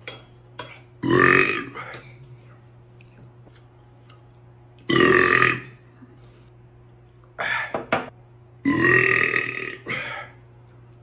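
A man belching three times, long loud burps from gulped carbonated soda. They come about a second in, about five seconds in, and near nine seconds in, with the last the longest, and a few short sharp sounds fall between them.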